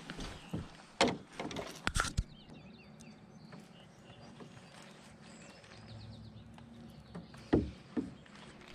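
Sharp knocks and bumps inside a canoe as rod and lure are handled, the loudest about a second and two seconds in and again near the end. Faint bird chirps come in between.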